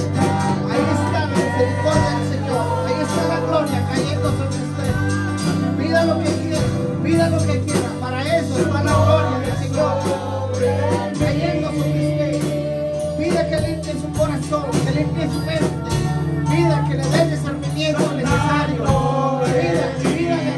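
Live church worship music: a man singing lead into a microphone over electric guitars and a drum kit, with a bass line that changes note about halfway through.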